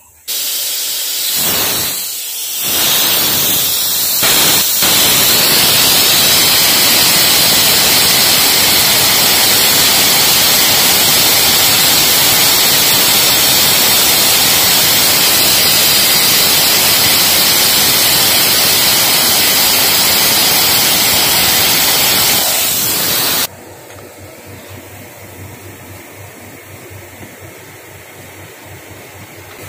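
Wire metal-spray gun atomising aluminium bronze wire onto the undercut shaft of a final drive hydraulic pump as it turns on the lathe. A loud steady hiss starts with a few sputters in its first seconds, then holds even and cuts off suddenly a few seconds before the end. What remains is the quieter steady running of the lathe turning the part.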